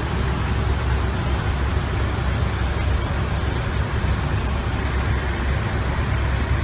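Steady rushing noise on an airliner flight deck in flight: air streaming past the cockpit windows along with engine and air-conditioning noise, heaviest in the low end.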